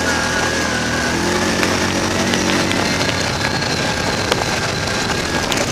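Off-road vehicle engine running under throttle while riding over rough ground, its pitch rising and falling a little as the rider works the throttle.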